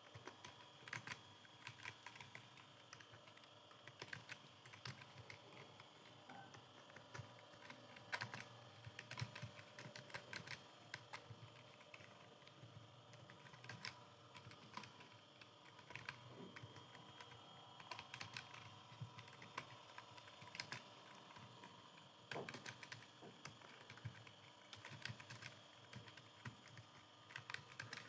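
Faint clicking of a computer keyboard being typed on, the keys struck in quick irregular runs with short pauses, as a passage is typed out in a timed typing test.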